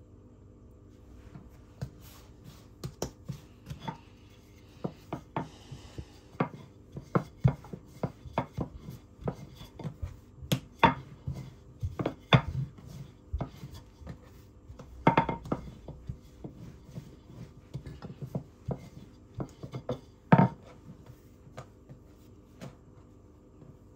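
Kitchen knife knocking and tapping on a cutting board in an irregular run for most of the stretch. A few louder strikes ring with a clink. A faint steady hum sits underneath.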